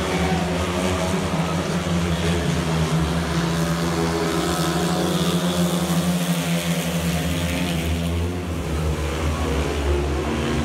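Speedway motorcycles racing: several 500cc single-cylinder, methanol-fuelled engines running together in one steady, loud drone.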